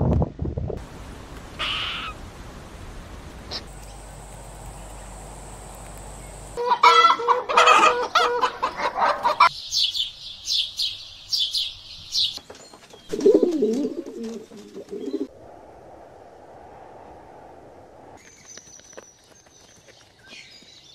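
A run of separate bird sounds: a chicken clucking loudly about seven seconds in, then a quick series of high sparrow chirps, followed by a shorter lower call and quieter background.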